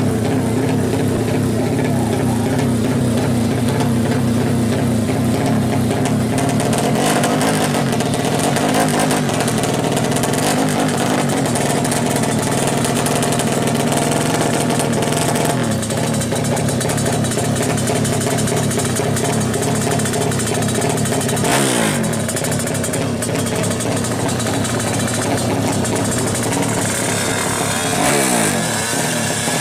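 Drag-racing motorcycle engine running loudly and being revved, its pitch dropping as the throttle is let off about twenty-one seconds in and again near the end.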